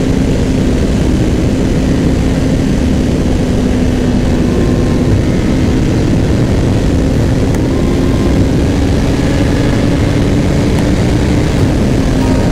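Kawasaki Ninja sport bike's engine running at a steady cruise, a constant drone that dips slightly and comes back near the end, under heavy wind rush on the rider's camera microphone.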